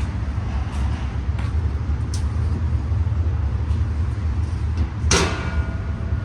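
Steady low rumble with a few light clicks, and a sharp metallic clank about five seconds in that rings briefly.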